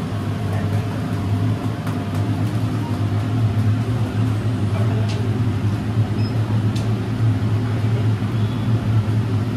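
A steady low mechanical hum, as of a motor or fan running, with a couple of faint clicks partway through.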